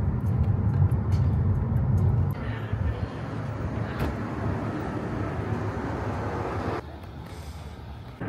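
Low road and engine rumble inside a moving car. About two seconds in, it gives way to a steady outdoor hiss and hum, which drops quieter near the end.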